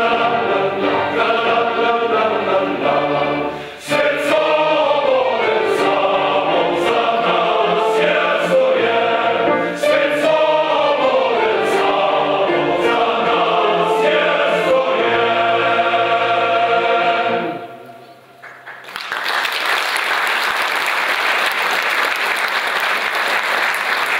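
A choir singing with a string orchestra; the music ends about three quarters of the way through. After a brief pause an audience breaks into applause for the last five seconds.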